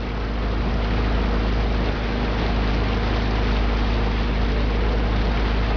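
Motorboat engine running steadily at low speed, a constant low hum under the rush of water along the hull, growing a little louder in the first second.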